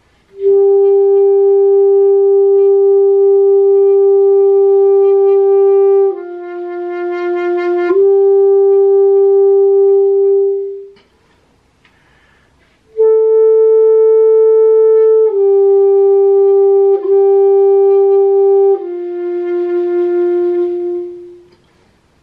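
Solo alto saxophone playing two slow phrases of long held notes, with a pause of about two seconds between them. The first phrase dips to a lower note and back before fading out; the second steps down over three notes and fades. The lower notes come out softer and breathier.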